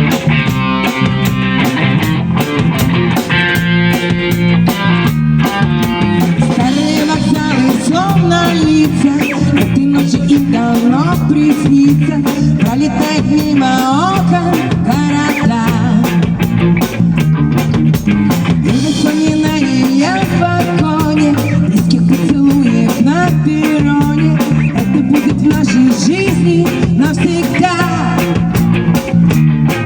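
A band playing an upbeat rock song on drum kit and guitars, with a steady beat.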